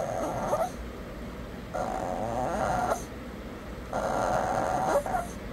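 A Shih Tzu whining and grumbling back at its owner in three drawn-out, wavering moans, each a little over a second long: protesting after being told no to food because it is on a diet.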